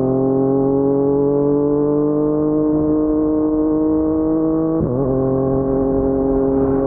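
Yamaha MT-09's crossplane three-cylinder engine through an Akrapovic carbon full-system exhaust, pulling with the revs rising slowly. About five seconds in there is a brief break and the pitch drops as it shifts up, settling to a steady lower note.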